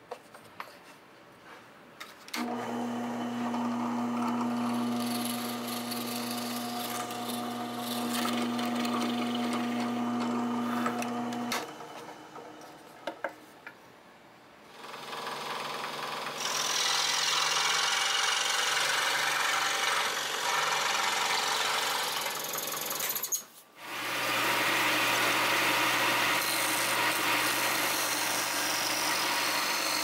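Bench power tools working small birch-plywood parts in turn: a drill press motor starts and runs with a steady hum for about nine seconds, then after a quiet pause with a few clicks a scroll saw runs and cuts, and near the end a disc sander runs as a part is pressed against it.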